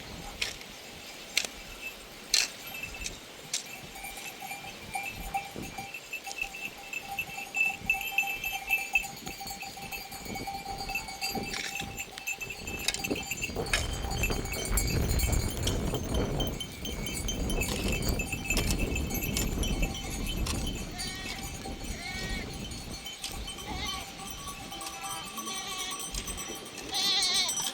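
Bells on a flock of sheep and goats clanking and ringing, with a few short bleats in the last part.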